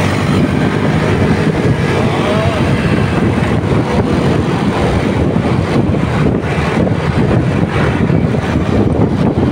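Motorcycle riding at speed: steady wind rush over the microphone mixed with engine and road noise.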